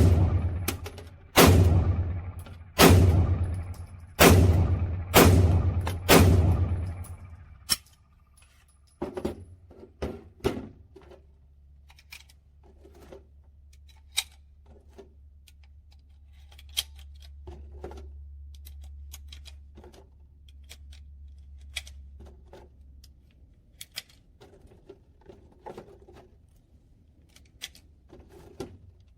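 Glock 43X 9mm pistol fired six times at a slow, steady pace, about one shot every second or so, each shot ringing out for about a second. Then a scatter of small clicks and knocks, with a low hum through the middle.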